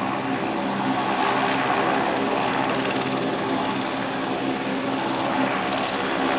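A helicopter close by, its rotor and engine running loud and steady with a humming beat.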